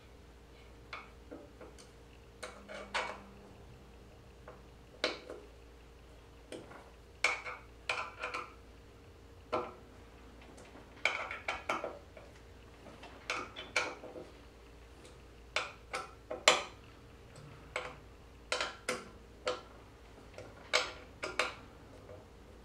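Irregular metallic clicks and clinks of hardware and tools handled against an aluminum CNC router carriage plate during assembly, coming in short clusters, over a faint steady hum.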